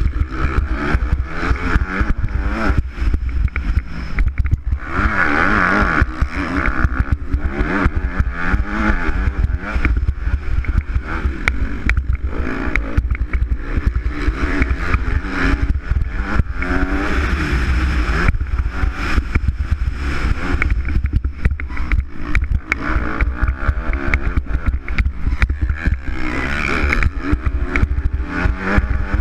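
Motocross bike engine heard from the bike itself, revving hard and falling back again and again as it is ridden along the track, with a heavy wind rumble on the microphone.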